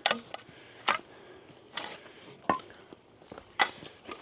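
Hand tools digging in stony dirt: about six sharp strikes and scrapes at irregular intervals, one with a brief metallic ring.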